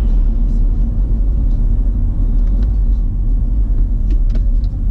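Steady low rumble of road and engine noise inside the cabin of a moving Mercedes-Benz car.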